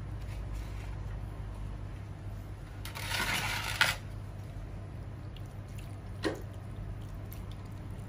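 Plastic containers handled on a tiled floor: a scraping rustle about a second long ending in a sharp clack about four seconds in, then a single knock about two seconds later. A steady low hum runs underneath.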